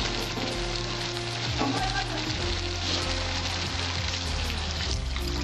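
Spice paste sizzling in hot mustard oil in an aluminium karahi, fried down until the oil has separated from the masala; near the end water is poured into the pan.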